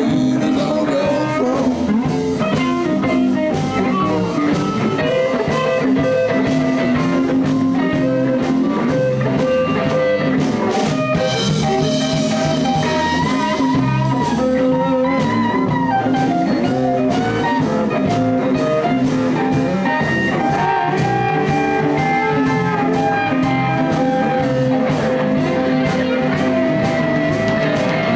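Live blues band playing an instrumental passage: guitar over a steady drum beat.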